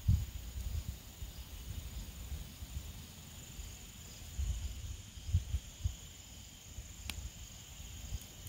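Insects trilling steadily in woodland at dusk, two high unbroken tones under everything. Low irregular thumps and rumbles on the microphone come and go, strongest at the very start and in a cluster around the middle, and there is one sharp crack about seven seconds in.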